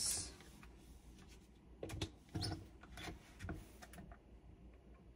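A few faint knocks and clicks of a plastic personal-blender cup being handled and set onto its motor base, about two to three and a half seconds in; otherwise quiet.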